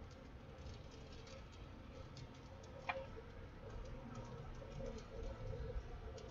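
Low rumble of a vehicle on the road heard from inside the cab, with faint scattered ticks and one sharper click about three seconds in.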